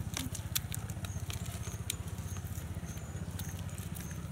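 Scattered light crackles and ticks from the fibrous trunk of a felled coconut palm being picked apart by hand, over a steady low motor-like drone, with a few faint high chirps.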